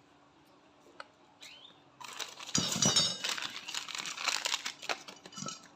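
A couple of single clicks, then about two seconds in a dense run of clattering and clinking from small hard metal parts being handled, with some high metallic ringing, lasting about three and a half seconds.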